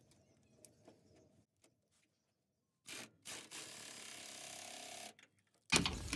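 Hand ratchet on a long socket extension running a bracket bolt up into the truck frame: a few faint clicks, then about two seconds of steady ratcheting, and a couple of louder metal knocks near the end as the tool comes off the bolt.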